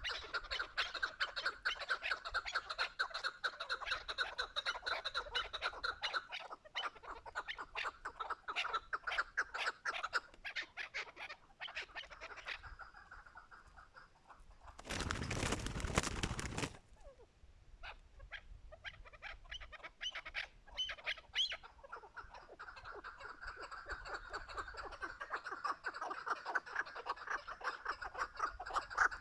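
Chukar partridges calling: long runs of rapid, repeated clucking notes, fading out before the middle and building again toward the end. About halfway through, a loud rushing noise lasts roughly two seconds.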